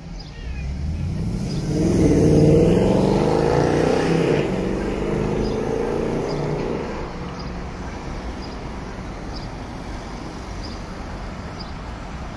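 Road traffic on a city street: a car passing close swells to its loudest about two seconds in and fades by about seven seconds. Steady traffic noise follows, with faint, evenly spaced high ticks.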